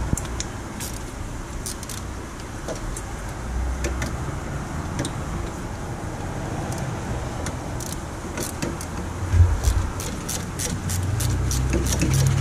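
Small metallic clicks and taps from hand work on a car's rear suspension: a loosened bolt and a metal bracket being handled at the ABS sensor. There is one heavier thump about nine and a half seconds in, and a steady low hum comes in near the end.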